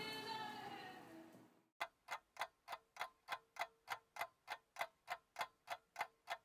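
Ticking clock sound effect, about three even ticks a second over a faint steady hum, cutting in and out abruptly after a short fade.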